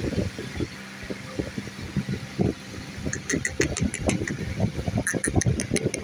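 Rose-ringed (Indian ringneck) parakeet giving short, sharp high chirps, several a second, starting about three seconds in, over irregular low knocks and rumble.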